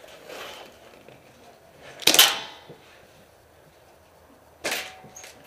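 Airsoft gun firing two sharp shots, about two and a half seconds apart, the first the louder, with a short echo.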